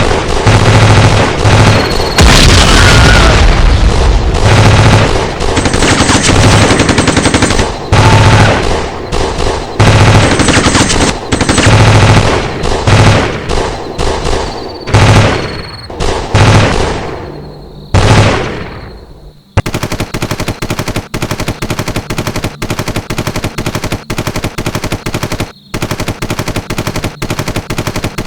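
Gunfire exchanged during a home invasion, picked up by a doorbell camera's microphone: loud, distorted shots in quick runs, some ringing out as they fade. After about twenty seconds it gives way to a steady fast run of sharp cracks, about four a second, a little less loud.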